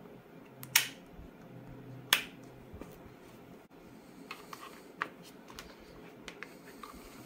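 Rotary function selector of a Hioki DT4261 digital multimeter clicking into place twice, sharply. Then several quieter plastic clicks and taps as a test-lead plug is pushed into the meter's shuttered input terminals.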